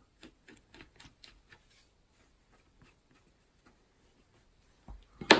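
Light clicks and scrapes of a silicone spatula and wooden spoon against a glass mixing bowl as soaked raisins are worked into soft bread dough. The clicks are most frequent in the first two seconds, and there is one sharper knock near the end.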